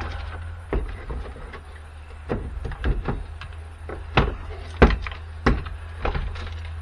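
Scattered clacks and knocks of plastic parts and tools being handled while a battery jump pack is taken apart, about half a dozen sharp ones, over a steady low hum.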